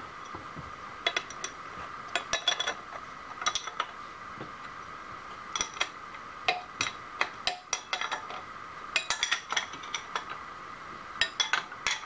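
Light metallic clinks and taps, metal parts and tools knocking on a milling machine's steel table and vise, in irregular clusters with a short ring, over a steady machine hum.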